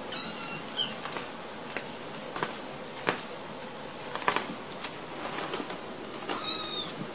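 Kittens mewing: two short, high-pitched mews, one right at the start and one near the end. Scattered light taps and scratches from the kittens' paws on the wooden floor and pad fall between them.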